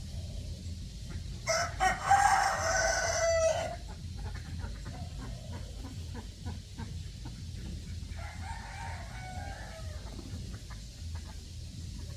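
A rooster crows once, loud and about two seconds long; a fainter fowl call follows later, over a steady low rumble.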